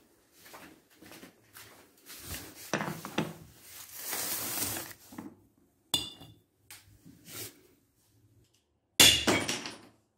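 Rustling and light knocks as tools and an old brick are handled. About six seconds in there is a sharp metallic clink as the brick is set down on a steel plate. Near the end comes a loud hammer blow on the brick that rings like metal.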